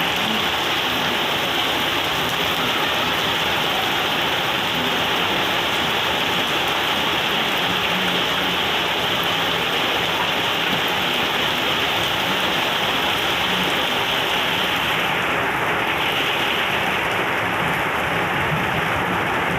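Heavy rain falling steadily, an even hiss of water on surfaces.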